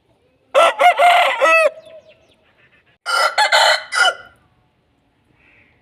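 Aseel rooster crowing twice, two loud crows about a second and a half apart.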